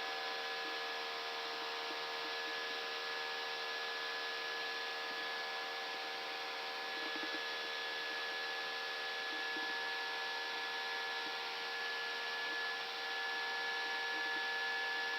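Steady in-flight cockpit noise of an Airbus A319 in the climb: an even hiss of air with several steady humming tones.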